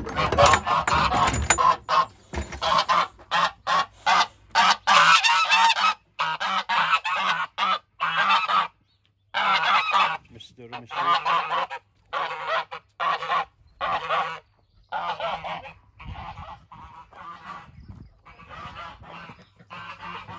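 Domestic geese honking excitedly, many loud calls over one another at first, then after a short pause separate honks that grow quieter towards the end.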